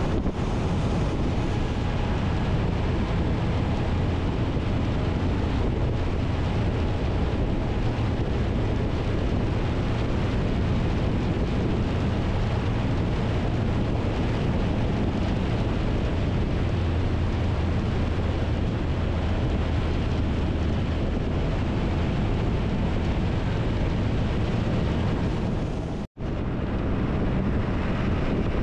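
Wind rushing over the microphone of a motorcycle at highway cruising speed, over the steady low drone of the Triumph Tiger 1200's three-cylinder engine. The sound drops out for an instant near the end, then the same riding noise carries on.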